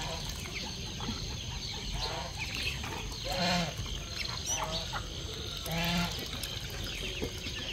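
Backyard poultry calling: a few short pitched calls around two, three and a half and six seconds in, over a steady background of small chirps and clucks.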